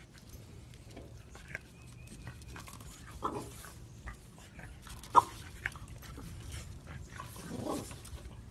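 A French bulldog nosing at a small animal, with a few short, faint animal noises and one sharp click about five seconds in.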